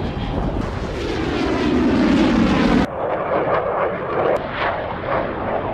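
Jet engine noise of a Saab Gripen E fighter in flight. A loud rush falls in pitch over the first three seconds, breaks off suddenly, and gives way to a slightly quieter, rougher jet noise.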